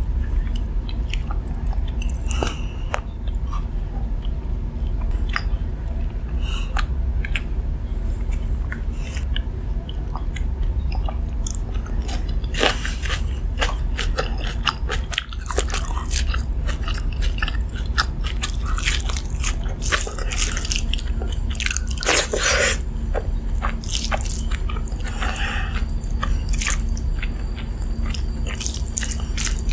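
Close-miked eating: a person biting and chewing crunchy food, with many sharp crunches that grow denser about halfway through, over a steady low hum.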